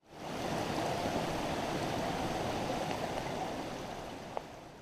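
Mountain stream rushing, a steady water noise that comes up quickly at the start and tapers off toward the end, with one faint tick a little before it fades.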